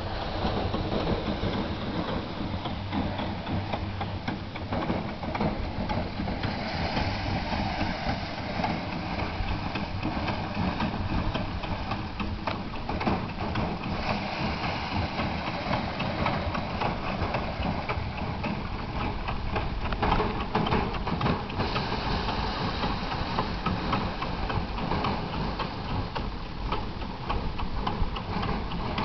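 Small engine-driven rice thresher running steadily as rice stalks are fed into it, a continuous machine rumble with a fine clatter.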